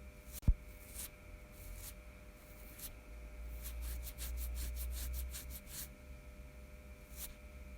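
Fingernails scratching the hair on the back of a hand: short raspy strokes, some in quick runs of several a second. A single sharp low thump about half a second in is the loudest sound.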